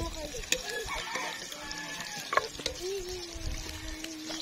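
A rooster crowing, ending on one long held note, while a metal ladle clinks a few times against a cooking pot as it is stirred.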